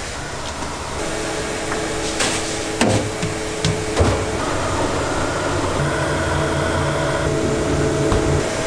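Electric rice mill grinding soaked rice into flour: a steady motor hum with a faint whine, and a few sharp knocks in the first half.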